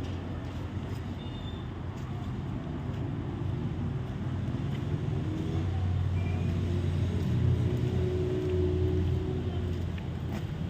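Steady low rumble of a motor vehicle running, louder for a few seconds in the second half and easing near the end, with a few faint light clicks.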